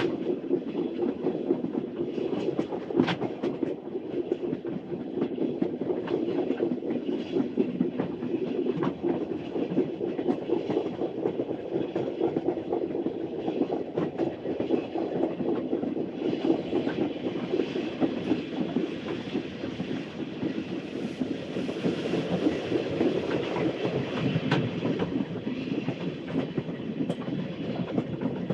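Early-1900s steam train running along the track: a steady rolling rumble with frequent sharp clicks.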